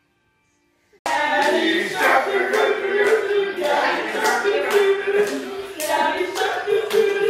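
Near silence for about a second, then a group of people singing together while clapping in time, about two claps a second.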